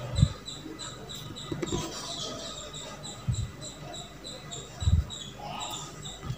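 A spatula stirring a thick, frothing besan barfi mixture in a steel kadai, with scraping and soft squelching and four dull knocks about a second and a half apart. The batter has thickened and foamed up after the oil and baking soda went in, the sign that it is nearly done.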